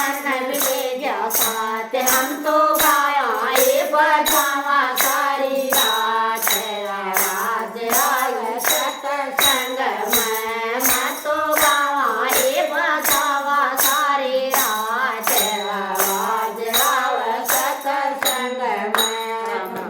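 A Haryanvi devotional bhajan sung by a single voice over a steady, jingly hand-percussion beat of about two strokes a second. The song stops right at the end.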